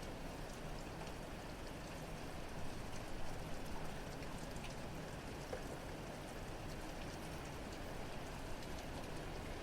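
Steady rain falling, with scattered drops ticking and a faint low hum underneath; a brief louder spell of drops comes about three seconds in.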